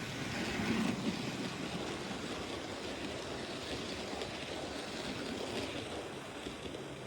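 Hornby OO gauge model of a Battle of Britain class steam locomotive running along the track. It makes a steady rumbling hiss of motor and wheels on rail, loudest about a second in as it passes closest.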